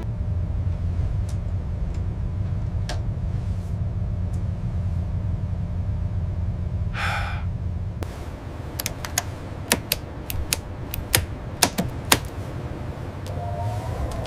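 A steady low hum, a short hiss about seven seconds in, then a quick run of sharp clicks and taps over the next few seconds.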